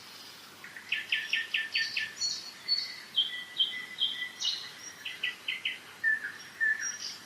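Spring songbirds singing in a forest: several overlapping songs made of quick runs of repeated chirps and short whistled notes.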